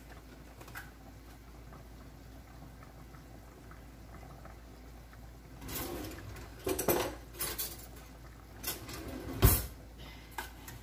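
Faint steady background, then from about six seconds in rustling and a run of clinks and knocks from kitchen utensils and containers being handled. The loudest is a single sharp knock near the end.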